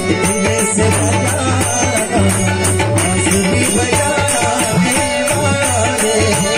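Live Marathi bhajan: voices singing with harmonium over a steady rhythm of tabla and jingling khanjari frame drums.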